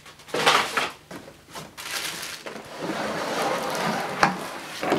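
Clear plastic wrapping crinkling and cardboard rubbing as a bagged vacuum cleaner is lifted out of its box: a short burst of rustling about half a second in, then a longer stretch of rustling and scraping, with a sharp knock about four seconds in.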